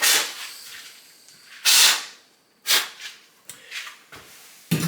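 Hand torch flame hissing in several short blasts while a copper pipe joint is being soldered, the longest about two seconds in.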